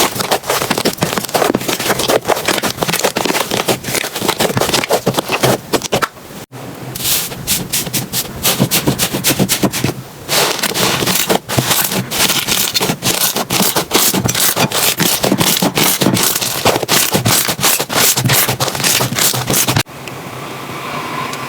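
Slime being squeezed and worked by hand: dense sticky crackling and popping clicks. The texture changes abruptly a few times, with a smoother hiss near the end.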